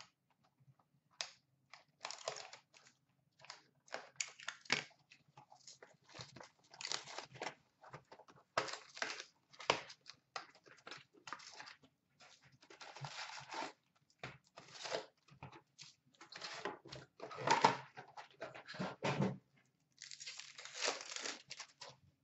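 A cardboard trading-card hobby box being torn open and its wrapped packs pulled out and handled: a run of irregular tearing, rustling and crinkling strokes with short gaps.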